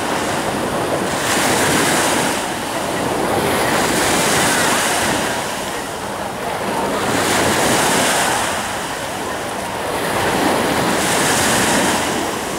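Ocean surf: waves breaking and washing in, the sound swelling and easing every few seconds.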